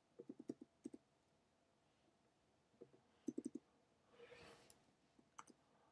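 Faint clicking of a computer keyboard and mouse: several quick clicks in the first second, a cluster about three seconds in and a couple more near the end, with near silence between.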